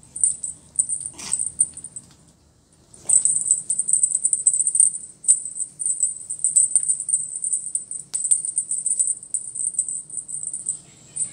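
Fast, high-pitched jingling of a small bell on a feather wand cat toy as it is shaken and waved, with a few sharp taps. It stops for about a second near the two-second mark, then carries on.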